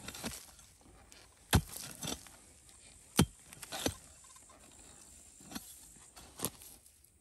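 Pickaxe striking dry, stony soil: about seven sharp strikes at uneven intervals, the loudest a little after one and three seconds in.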